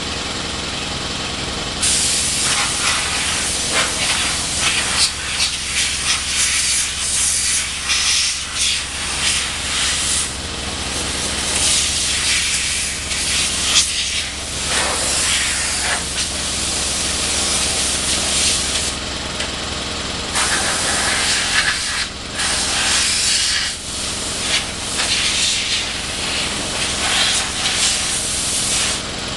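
Compressed air hissing from an air-hose blow nozzle in long bursts with brief breaks, starting about two seconds in, as dirt is blown off a mower. A steady low machine hum runs underneath.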